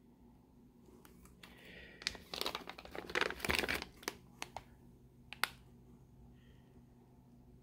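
Plastic fish shipping bags crinkling as they are handled, loudest about two to four seconds in, followed by a few sharp clicks.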